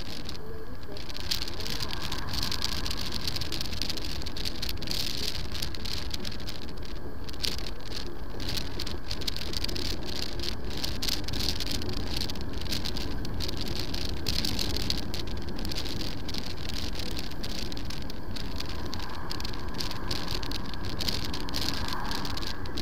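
Steady wind rush and road noise on the action camera's microphone as a Piaggio MP3 350 scooter rides along, with rapid flickering buffeting in the hiss.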